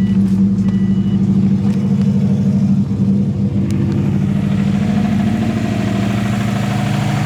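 Subaru WRX's flat-four boxer engine running just after starting, its note pulsing rapidly with a knock. The owner takes it for rod knock from a spun rod bearing, though she allows it could be the timing belt tensioner pulley. A brief beep sounds about half a second in, and the running evens out about three seconds in.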